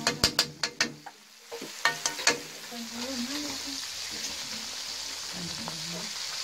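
Fish frying in hot oil in an iron kadhai, a steady sizzle, with a metal slotted spoon clinking and scraping against the pan several times in the first couple of seconds as the pieces are stirred.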